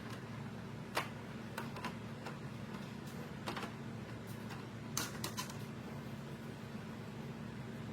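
Scattered sharp clicks and taps from plastic parts being handled and fitted, about seven in all, the loudest about a second in and about five seconds in. They sit over a steady low hum.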